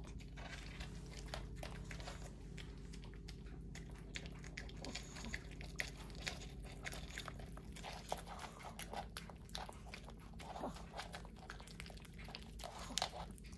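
A Maltipoo and a Pomeranian biting and chewing through an egg and its shell: an irregular run of small crisp cracks and clicks, with wet chewing between them.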